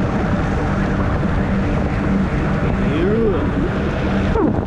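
Steady rushing wind noise on the microphone mixed with rolling noise from a moving ride. A short rising-then-falling tone sounds a little past three seconds in.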